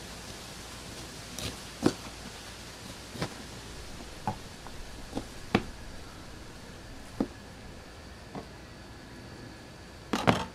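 A chef's knife cutting steaks from a blacktip shark on a plastic cooler lid: irregular sharp knocks as the blade strikes the lid and chops through the body, about ten in all, with a louder clatter near the end.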